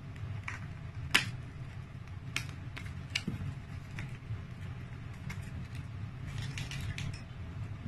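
A small paperboard product box being handled and opened: a few sharp clicks and taps, the loudest about a second in, then a short patch of cardboard rustling near the end. A steady low hum runs underneath.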